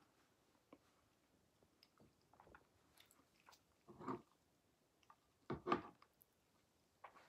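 Faint mouth sounds of a person chewing a dense fudge brownie, with a few short, louder noises about four and five and a half seconds in.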